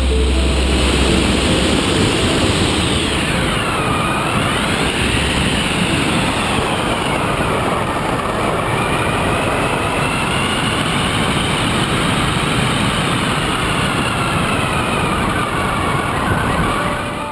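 Beta 1400 RC model plane's motor and propeller, recorded onboard over a steady rush of wind: a whine that dips in pitch about four seconds in, then rises and wavers as the throttle and airspeed change.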